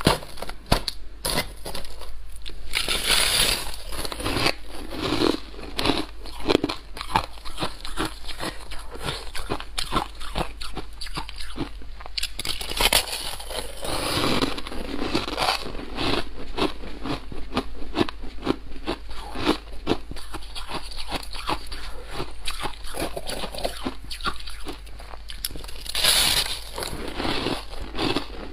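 Soft, snow-like frost ice being bitten and chewed close to a clip-on microphone: dense crunching and crackling, with louder bites a few seconds in, midway and near the end.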